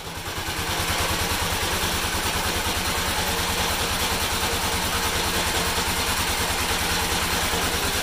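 A small engine running steadily at idle, with an even beat of about eleven pulses a second.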